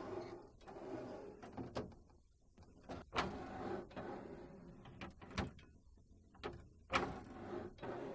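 Wooden cabinet drawers sliding in and out on their metal runners: several short rumbling slides, with sharp clicks and knocks as the drawers stop and the interlock hardware engages.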